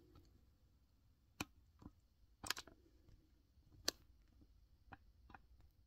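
Near silence: room tone with a handful of faint, sharp clicks, the clearest about two and a half and four seconds in.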